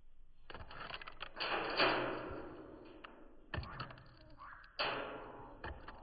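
Irregular taps and clicks with rustling of seed as a blue jay pecks and rummages in the seed tray of a plastic bird feeder, in several short clusters.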